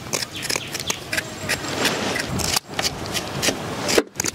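Scissors snipping the fins off ribbon fish: a quick run of short snips and scrapes as the fish are trimmed and handled.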